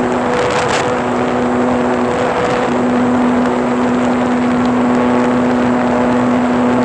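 Model airplane's motor and propeller droning at a steady pitch, recorded by a phone mounted on the airframe, with wind rushing over the microphone and a brief gust about half a second in.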